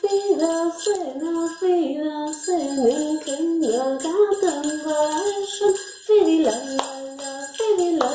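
Christmas song with jingle bells shaking steadily over a sung melody.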